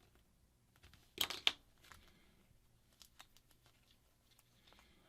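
X-Acto knife cutting and scraping at adhesive tape, a quick run of short crackling scrapes about a second in, then a few faint ticks.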